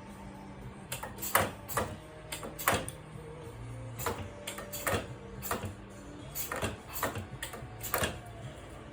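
Spot welding machine working: about a dozen sharp clacks, unevenly spaced, over a low hum that comes and goes.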